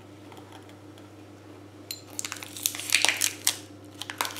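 A foil-wrapped packet of marzipan crinkling as it is handled, with a rapid run of short crackles starting about two seconds in and dying away near the end.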